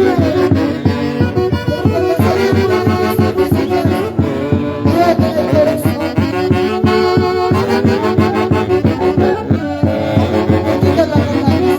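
Live instrumental dance music from a Huancayo-style band, with wind instruments holding sustained melody lines over a steady, driving beat.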